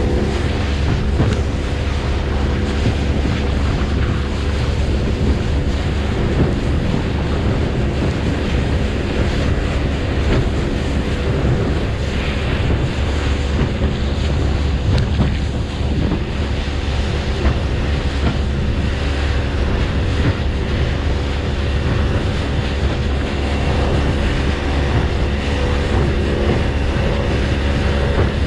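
Motorboat running at speed: a steady engine drone under rushing water from the hull and wake, with heavy wind buffeting on the microphone.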